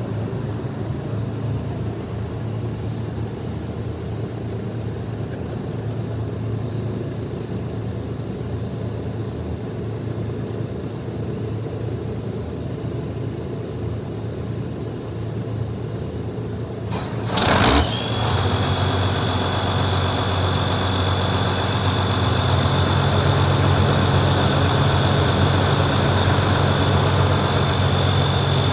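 Case IH 2188 combine's diesel engine running steadily. About 17 seconds in comes a short loud rush, then a steady high whine joins the engine, which picks up speed a few seconds later.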